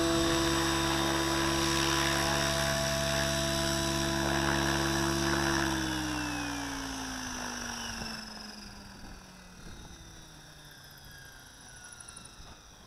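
Align T-Rex 700E Pro DFC electric RC helicopter's rotor and motor humming steadily in a low hover, then, about halfway through, spooling down after touchdown: the pitch slides steadily lower and the sound fades.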